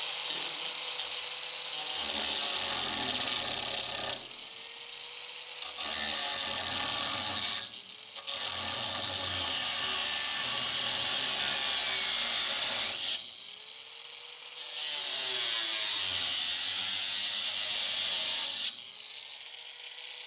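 High-speed power cutting tool slicing through the rusted sheet steel of a jeep tub's side step. It runs in about four long cuts, its whine spinning up at the start of each and winding down in the short pauses between.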